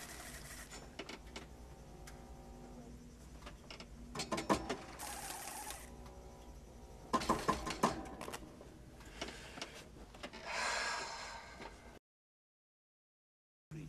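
Clicks, clanks and a low steady hum of the machinery inside a cramped mechanical rhino, with a short hiss about ten seconds in. The sound cuts off abruptly about twelve seconds in.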